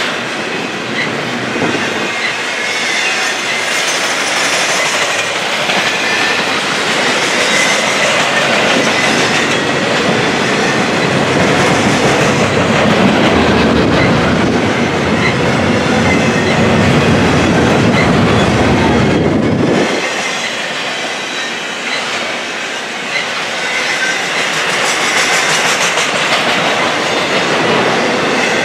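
Double-stack intermodal container cars rolling past: a steady rumble and clatter of steel wheels on rail, with a faint high wheel squeal. A deeper, louder rumble builds about midway and cuts off sharply about two-thirds through.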